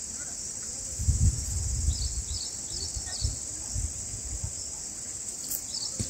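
Steady high-pitched insect chorus, like crickets or cicadas. A few faint short high chirps come in around two to three seconds in and again near the end, and low thumps fall between about one and four and a half seconds in.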